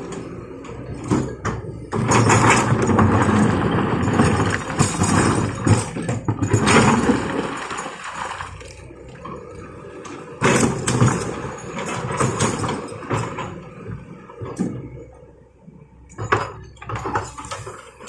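Heavy diesel machinery running with a steady low hum, its noise surging and easing several times, with a few sharp metallic clanks, the clearest near the end.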